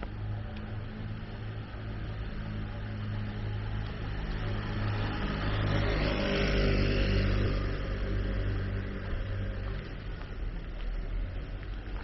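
A road vehicle passing by on a city street: its engine and tyre noise swell to a peak about halfway through, then fade, over a steady low engine hum.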